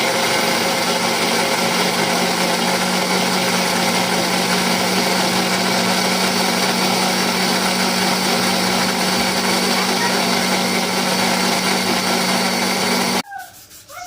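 Maharaja Whiteline juicer mixer grinder's motor running steadily while juicing grapes, then switched off suddenly near the end.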